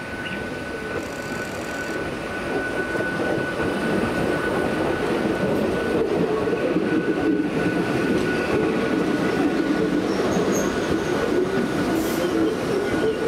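Old Hakone Tozan Railway electric railcars (Moha 2 No. 108 leading Moha 1 cars) rolling slowly past into the station, steel wheels rumbling on the rails and growing louder over the first few seconds as the cars come close. Through it runs a thin, steady high squeal from the wheels on the curved track.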